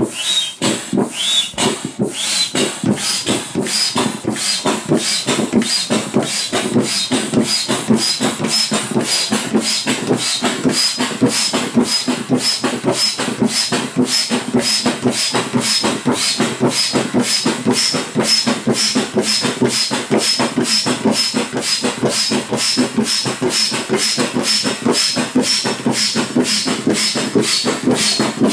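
Foot-operated bellows pump inflating an inflatable boat: quick, even strokes, each pushing a rush of air with a short high squeak.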